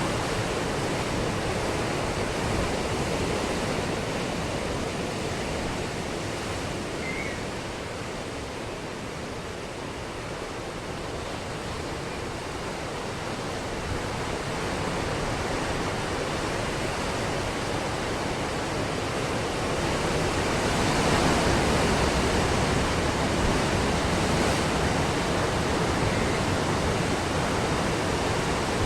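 Ocean surf breaking on a beach as a continuous wash that slowly swells and ebbs, dipping about a third of the way in and building to its loudest crash a little past two-thirds through.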